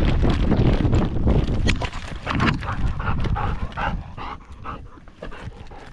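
A dog running with a camera strapped to its harness: heavy rumbling of movement on the microphone for the first couple of seconds, then quick rhythmic panting that fades near the end.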